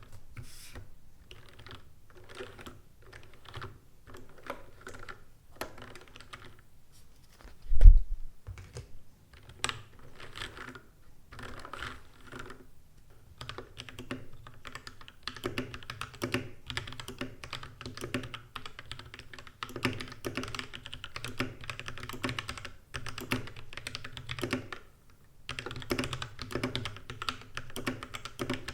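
Typing on a mechanical keyboard fitted with pre-lubed Gateron Yellow linear switches: a steady patter of keystrokes, with one loud low thump about eight seconds in and a brief pause near the end.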